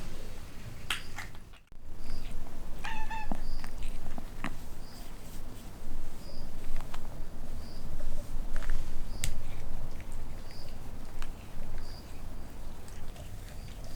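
A kitten meows once, briefly, about three seconds in, among scattered light clicks and knocks.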